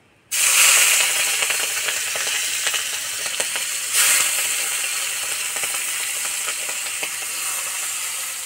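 Prawns coated in salt and turmeric dropped into hot mustard oil in an aluminium wok, bursting into a loud sizzle at once. A fresh surge comes about four seconds in, then the frying settles to a steady sizzle.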